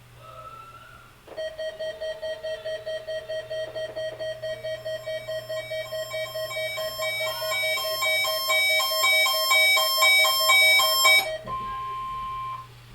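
Electronic alert beeping from weather radio receivers: a rapid pulsed beep, about three a second, starts about a second in, and higher beep patterns join it so that several overlapping alarms sound together, getting louder. They stop near the end, leaving a steady single tone for about a second.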